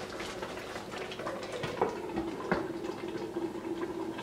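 Tomato broth simmering in a pan, bubbling with scattered small pops. A faint steady hum joins about a second in.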